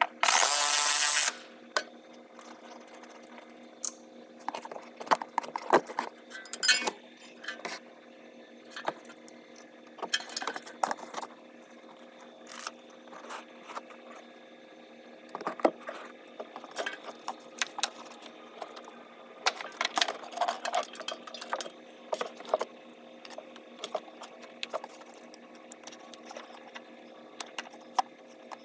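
A cordless ratchet whirs for about a second at the start. Then come many small clicks, taps and rattles as the plastic connectors of a brake pad wear sensor are handled, over a steady low hum.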